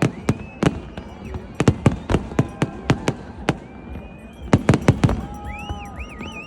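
Fireworks going off in rapid, irregular bangs, with a dense cluster of bursts about four and a half seconds in. High whistling tones sound between the bangs.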